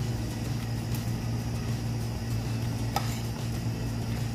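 A steady low mechanical hum, with a few short clicks of chopsticks against a bowl, the sharpest about three seconds in.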